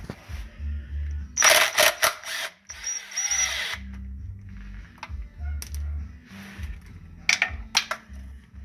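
Background music with a repeating bass beat. About a second and a half in come two loud bursts of power-tool noise lasting about two seconds together, and later a few sharp metallic clicks.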